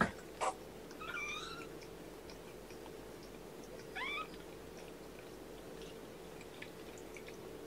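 Three-week-old kittens mewing: two short, high-pitched mews, one about a second in and a rising one about four seconds in. Two sharp clicks come right at the start, over a faint steady hum.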